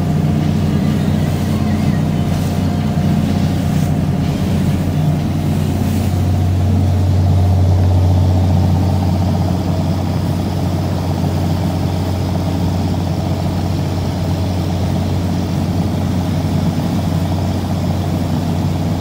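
Lobster boat's engine running steadily underway: a constant low drone under a hiss of noise.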